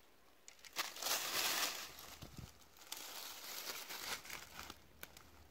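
A knife scraping and trimming the soil-covered base of a Caesar's mushroom (Amanita caesarea) stem, with rustling as it is handled: a louder scratchy stretch about a second in, another around three seconds in, and a few light clicks.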